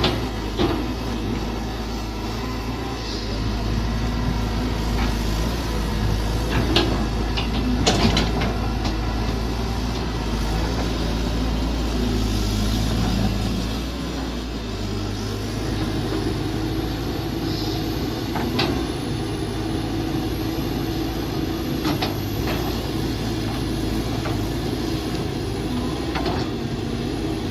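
Mini excavator engine running steadily under work, its note shifting about halfway through, with a few sharp knocks and clanks scattered through.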